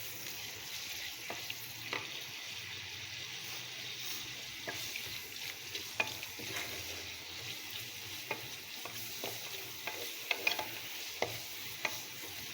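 Onion sizzling in hot oil in a cooking pot while being stirred with a spoon: a steady frying hiss broken by irregular clicks and scrapes of the spoon against the pot.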